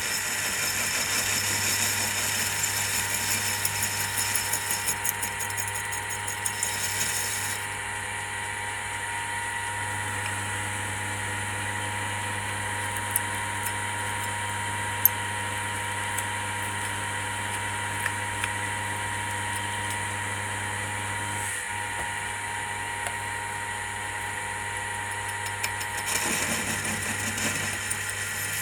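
Mini lathe running with a steady motor hum and whine while turning a pipe sleeve, with a hissing cutting noise over roughly the first seven seconds and again near the end. A few sharp clicks fall in the quieter middle stretch.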